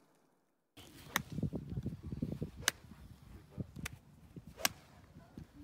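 Golf balls being struck on a practice tee: about four sharp cracks of club on ball, a second or so apart, over a low rumble of wind on the microphone.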